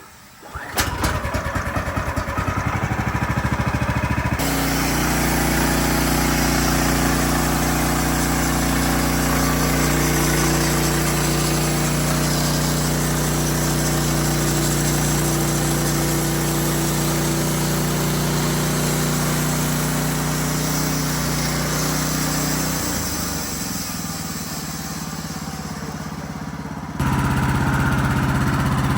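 Wood-Mizer LX55 portable sawmill's engine running steadily. It comes in loudly about a second in, and its tone changes abruptly twice.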